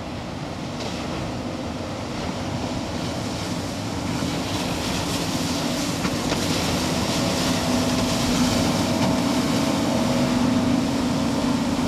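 Twin outboard motors of a rigid-hull inflatable boat running at speed, with the rush of the hull and spray through the water, growing steadily louder as the boat closes in; the engine hum comes through more clearly from about halfway.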